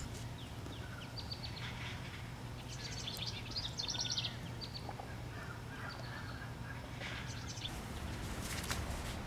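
Small birds chirping in short, high calls, thickest about three to four seconds in, over a steady low background noise. A few faint clicks come near the end.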